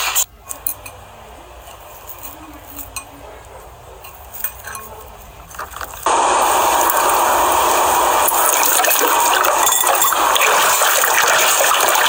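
Running water, a steady loud rush that starts suddenly about six seconds in. Before it come quieter, scattered faint clinks and handling sounds.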